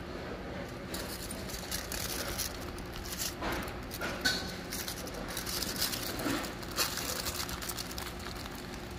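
Aluminium foil crinkling in short, irregular crackles as it is folded by hand, over a faint steady low hum.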